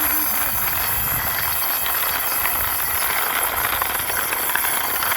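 Small toy car pushed along by hand, its plastic wheels rolling and scraping over the floor in a steady hiss with faint rattling ticks.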